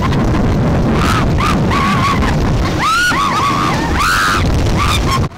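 Rumbling wind and ride noise on a moving roller coaster, with short rising-and-falling vocal cries over it again and again. The sound cuts off suddenly near the end.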